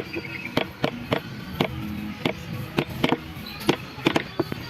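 Sharp knocks at slightly uneven intervals, about two a second, of a mallet striking a carving chisel into wood, over background music.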